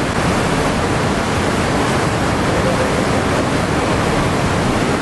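Steady rushing of muddy flash-flood water running across a highway, an even, unbroken roar of fast shallow flow.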